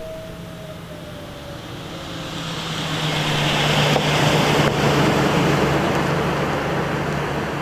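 A road vehicle passing close by: tyre and engine noise swells over a couple of seconds, peaks near the middle, then eases off a little. At the start, a distant outdoor warning siren's two tones slide down in pitch and fade as it winds down.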